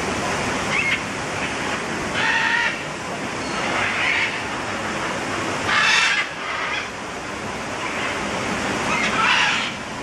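Parrots squawking harshly several times, the loudest call about six seconds in, over a steady rushing noise.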